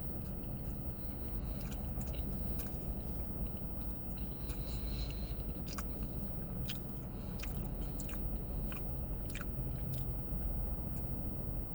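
A person chewing and biting a turkey sandwich close to the microphone, with scattered wet mouth clicks. Under it runs the steady low hum of a car cabin.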